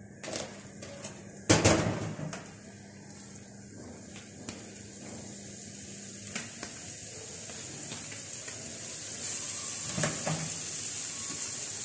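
Frozen chicken mince starting to sizzle on a hot flat tawa as it is pressed and spread by hand, a steady hiss that grows stronger in the second half. A loud knock about one and a half seconds in, with a few lighter clicks of hand and colander on the pan.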